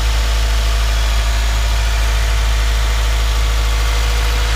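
2015 Subaru WRX's turbocharged 2.0-litre flat-four engine idling steadily.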